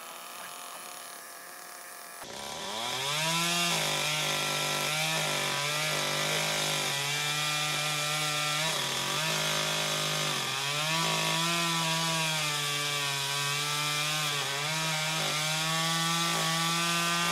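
Two-stroke chainsaw revs up about two seconds in and runs at high speed, cutting through a dead oak limb; its pitch dips several times as the chain bites into the wood.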